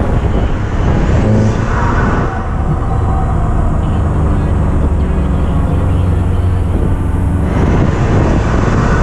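Car driving at speed: engine running under steady throttle with road and wind rush. A steady engine drone is clearest from about two seconds in, and the rushing noise rises again near the end.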